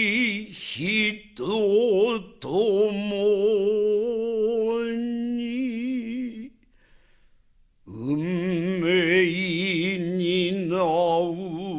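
Unaccompanied solo voice singing long, held notes with a wide, wavering vibrato, in a chant-like style. One phrase runs through the first half and stops, and after a short pause a second phrase begins.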